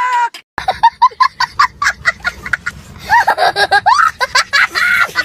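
A young child laughing hard in quick, repeated bursts of giggling, high-pitched and loud.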